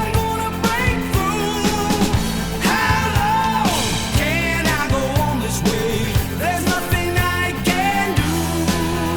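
Song with a singing voice, drums and bass played from a vinyl record through an Ortofon SPU 1E cartridge, recorded straight from the line output.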